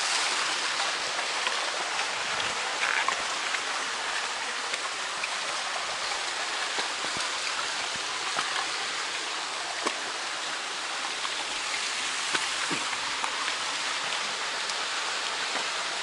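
A small rocky forest stream running and cascading over rock slabs, giving a steady rushing hiss, with a few faint knocks.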